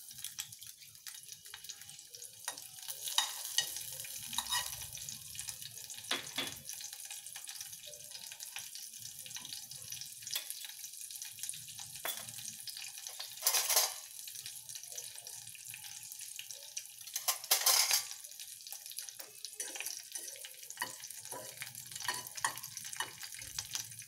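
Curry leaves sizzling and crackling in hot ghee in an aluminium pressure cooker: a steady frying hiss with small pops, and two brief louder hisses a little past halfway and about three quarters of the way through.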